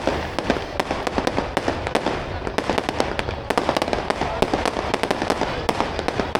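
Fireworks going off, a dense, continuous volley of rapid sharp pops and crackles with no pause.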